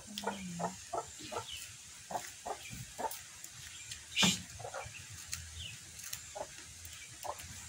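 Chickens clucking in short, repeated notes, with one sharp snap about four seconds in.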